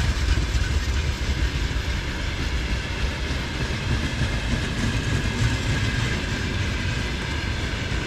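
Freight train rolling past: a steady rumble of the wagons on the rails, with the wheels clacking.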